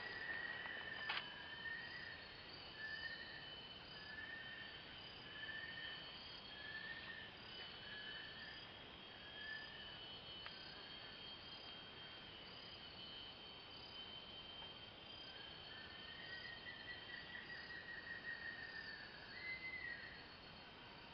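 Forest ambience: a steady high insect drone, with a short whistled note repeating a little more often than once a second for the first half and a longer trill later on.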